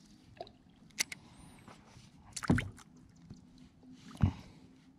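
Handling noise in a kayak: a few short knocks and bumps of the fishing rod and hands against the kayak, the loudest about halfway through, with small wet sounds between.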